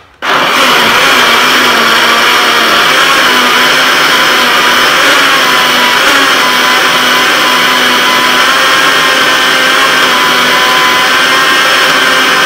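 Electric countertop blender switched on and running steadily at full speed, grinding black-eyed peas with habanero and a little water into a smooth batter.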